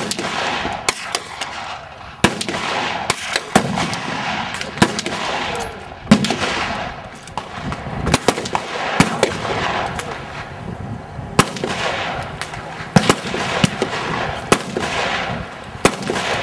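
Gunfire at an outdoor rifle range: a steady run of single rifle shots at irregular intervals, roughly one every second or two, some sharper and louder than others, each trailing off in echo.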